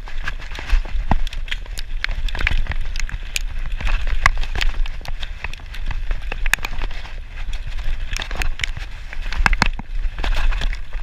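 Mountain bike ridden fast down a dirt forest trail: tyres crunching over dirt and roots while the bike rattles and clatters with many sharp clicks and knocks, over a steady low rumble of wind on the microphone.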